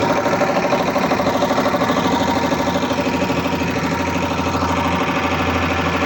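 Puma 5 HP piston air compressor running steadily under test, its pump chugging with a rapid, even pulse.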